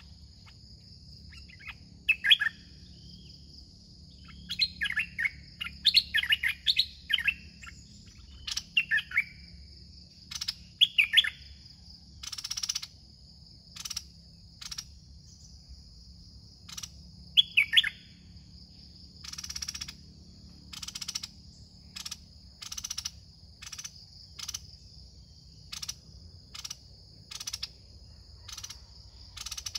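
Red-whiskered bulbuls singing in short, bright, quickly varying phrases through the first half, over a steady high insect drone. From about the middle on, short rasping bursts repeat roughly once a second.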